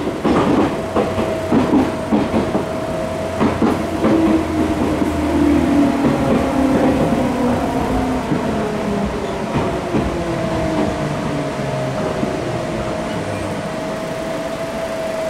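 Seibu new 101 series resistance-control electric train heard from inside the passenger car as it slows. Wheel clicks over rail joints in the first few seconds give way to traction motor and gear whine falling in pitch, over a steady hum.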